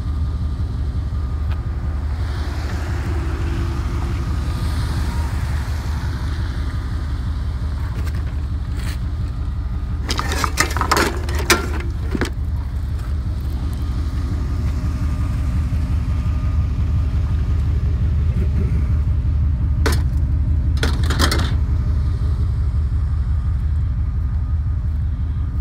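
Steady low rumble of a vehicle engine running, with two short bursts of clattering, about ten seconds in and again around twenty seconds in.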